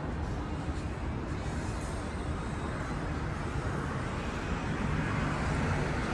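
City street sound with road traffic: a steady noise of vehicles running nearby, swelling somewhat near the end as a vehicle draws closer.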